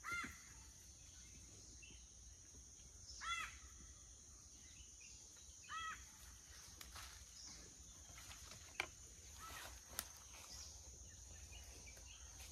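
Quiet outdoor ambience. A bird calls three times, short calls a few seconds apart, over a faint steady insect hiss. Near the end there are two faint sharp clicks.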